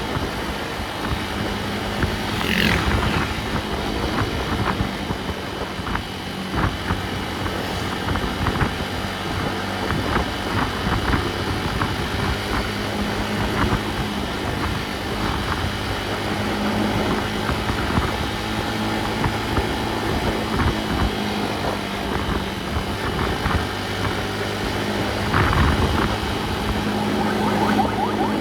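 A motor vehicle on the road: a steady engine drone and road noise, with scattered short knocks and rattles.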